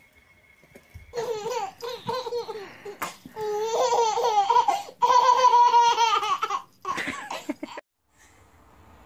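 A baby laughing hard in repeated high-pitched bursts of giggles, which break off suddenly near the end.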